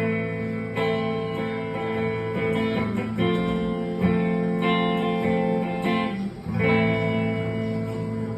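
Guitar strumming chords with no vocal, each chord left ringing and a new strum coming about every second.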